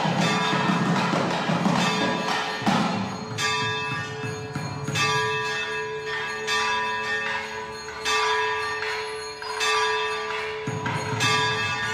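Hindu temple bell rung with repeated strokes about every second and a half, each stroke ringing on over the next, with a denser rattling beat underneath at the start and again near the end.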